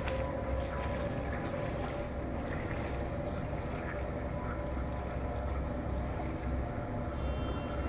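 Steady low rumble of wind buffeting the microphone, over a faint constant hum.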